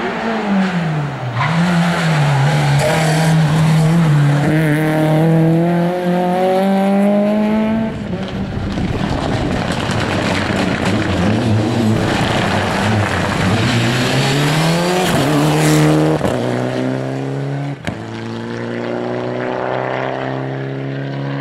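Rally cars at full throttle on a tarmac stage, engines revving hard, the pitch climbing through the gears and falling away on lifts and braking, with some tyre noise.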